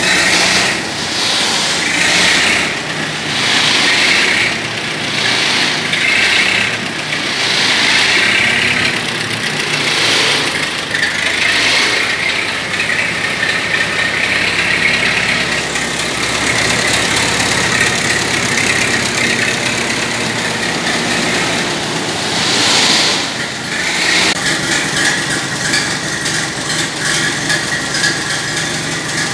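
Freshly rebuilt Buda engine of a 1918 Turner Simplicity 14-28 tractor running on its first start after the rebuild. Its sound swells and falls about every two seconds at first, then settles into a steadier run, with one more swell near the end.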